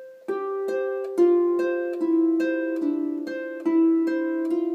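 Double-strung harp playing a Scottish tune in C: plucked notes about two to three a second, each ringing on under the next, at about as fast as the player can go when it is not played with the double-strung hand pattern.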